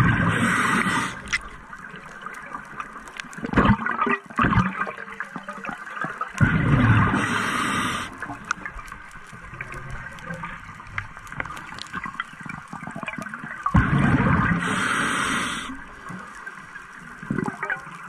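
Scuba diver breathing through a regulator: exhaled air bubbles gurgle past the camera in three bursts about seven seconds apart, with a quieter hiss between breaths. A couple of short knocks come about four seconds in.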